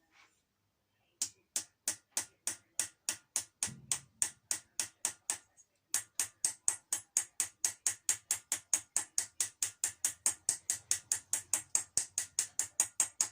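Light, even hammer taps on a socket, driving a propshaft centre-bearing part home: about three sharp metallic taps a second, a brief pause about five and a half seconds in, then quicker at about four a second.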